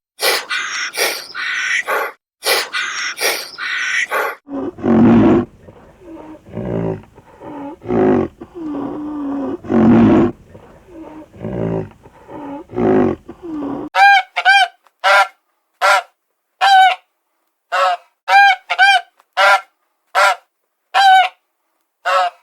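Animal calls in three runs: quick high calls for the first four seconds, then lower, longer calls, then from about fourteen seconds a string of short, sharp pitched calls with brief gaps between them.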